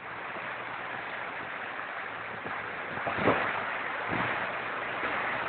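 Floodwater rushing, a steady noise that swells over the first second, with a brief knock about three seconds in and a smaller one a second later.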